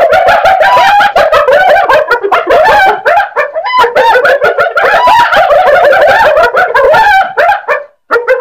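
Spotted hyenas giggling: a fast string of short, high yelping notes, each rising and falling in pitch, several a second, broken by two brief pauses.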